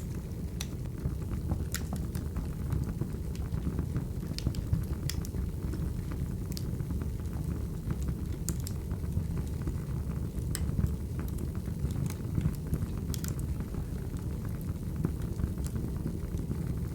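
Wood fire burning: a steady low rumble with irregular sharp crackles and pops.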